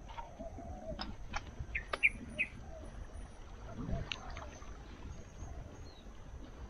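Small birds chirping in short notes, a few in quick succession about two seconds in, over the low rumble of bicycles rolling along a paved path, with a few sharp clicks.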